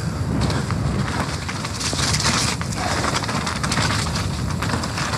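Nukeproof Mega full-suspension mountain bike riding down a wet, muddy trail, heard from a rider-mounted action camera: a steady rumble of tyres and suspension over rough ground, peppered with small clattering knocks from the bike. A louder burst of hiss about two seconds in.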